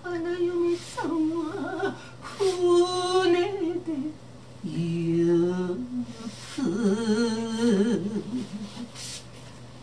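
A woman singing a slow song without instruments, in long held notes with a wavering vibrato, phrase by phrase with short breaths between; the voice drops away near the end.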